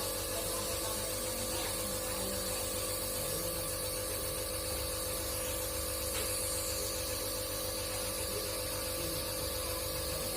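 Electric compressor nebulizer running for a baby's inhalation treatment: a steady motor hum with an even hiss of mist.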